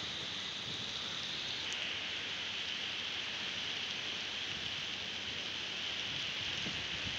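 Heavy rain pouring onto a flooded paved surface, a steady hiss of drops splashing into standing water.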